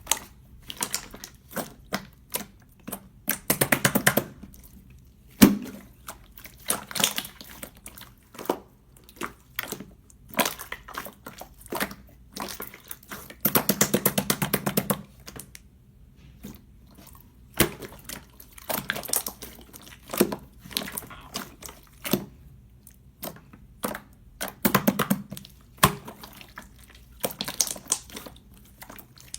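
Clear slime being pressed and squished by hand, giving irregular sticky pops and clicks of trapped air. Twice it breaks into a run of rapid popping that lasts a second or two.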